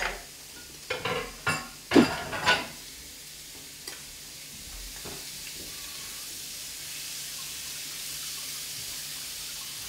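Shrimp, scallops and ravioli frying in butter in a nonstick skillet: a steady sizzle that grows a little louder as the added butter melts. A few short knocks and scrapes of the tongs on the pan come in the first three seconds.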